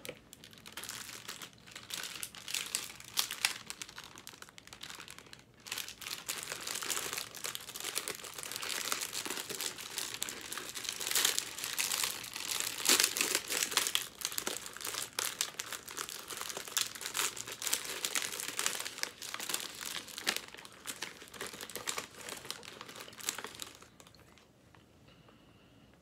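Clear plastic snack bag crinkling and crackling as it is handled and opened. The crinkling stops shortly before the end.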